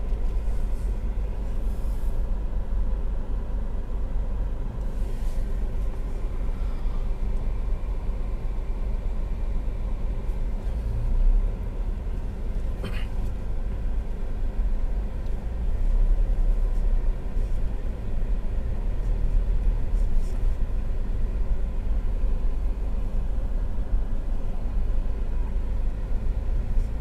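Steady low rumble of a Ford EcoSport's engine and road noise, heard from inside the cabin while driving downhill, with a short click about halfway through.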